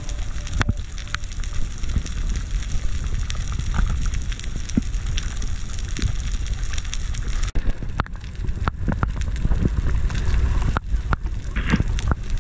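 Underwater sound picked up through a camera's waterproof housing: a steady low rumble of water, with scattered sharp clicks and crackles from the reef that grow busier in the second half.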